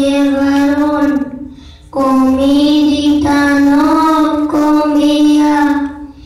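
Children singing together in long held notes: one phrase ends about a second in, and after a short breath a new, longer phrase begins, stepping between a few pitches.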